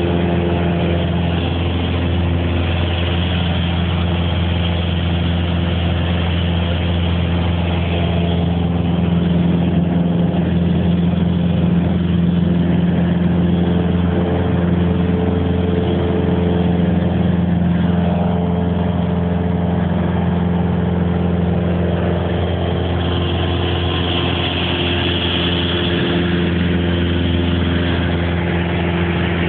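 Small plane's engine and propeller running steadily, a constant drone with a strong low hum.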